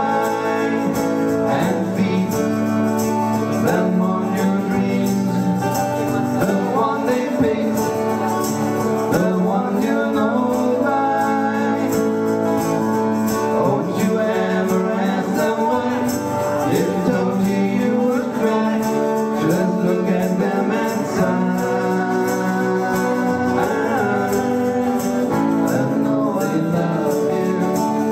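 Live acoustic song: strummed acoustic guitar with a tambourine shaken in rhythm, and male singing.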